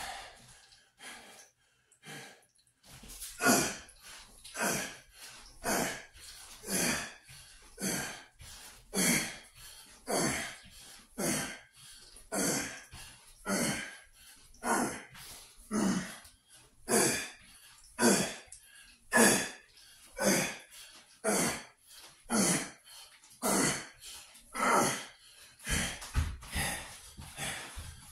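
A man's sharp, forceful breaths during push-up reps, one breath about every second in a steady rhythm, with low thumps near the end.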